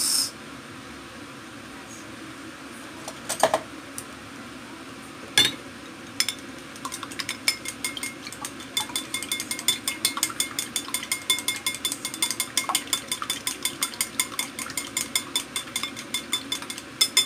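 Chopsticks beating a raw egg in a glass bowl: rapid, even clicking of the chopsticks against the glass with a thin steady ring, starting about seven seconds in after a couple of separate knocks.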